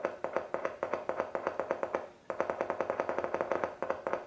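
Large bass speaker driver crackling as a wire from an AA battery is touched and scratched against its terminal: a rapid run of ringing clicks that pauses briefly about two seconds in, then starts again. The clicks show the driver's voice coil is not open circuit.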